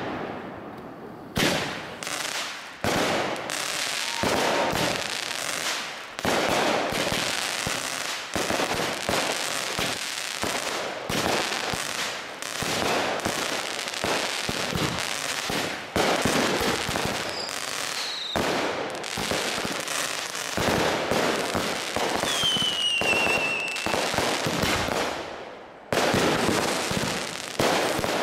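Aerial fireworks going off in quick succession: repeated sharp bangs of bursting shells with dense crackling in between. Twice, about two-thirds through, a short whistle falls in pitch.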